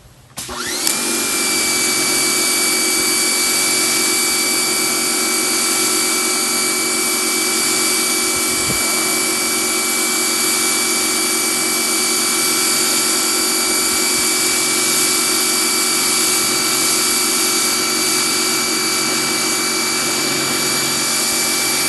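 Electric pressure washer starting about half a second in, its motor whine rising briefly, then running steadily with a loud hiss of water spraying through a 40-degree nozzle.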